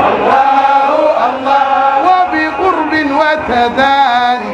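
A man chanting a Sufi madih (praise song of the Tijani order) into a microphone, holding long wavering notes with slow melodic rises and falls.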